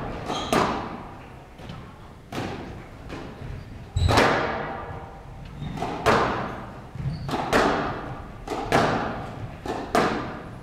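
Squash rally: a squash ball cracking off rackets and the court walls, a sharp strike about every second, often in quick pairs, each ringing on in the hall. The loudest hit comes about four seconds in.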